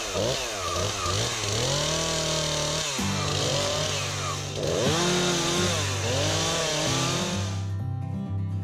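STIHL MS251 two-stroke chainsaw cutting through a dead fallen tree trunk, its engine revving up and dropping back several times as it bites into the wood. Near the end the saw stops suddenly and acoustic guitar music is left.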